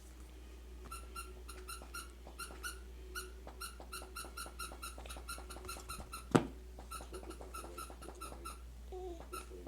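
A baby making rapid, repeated high-pitched squeaks, about four a second, in runs with short pauses. One sharp knock about six seconds in is the loudest sound.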